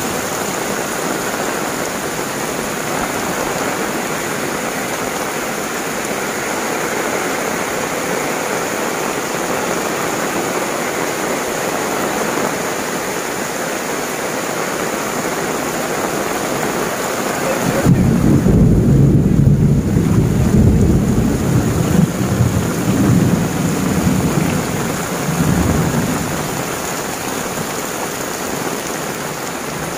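Heavy tropical rain pouring steadily onto tiled roofs, foliage and ground. About eighteen seconds in, a deep roll of thunder comes in and becomes the loudest sound, rumbling in swells for several seconds before fading back under the rain.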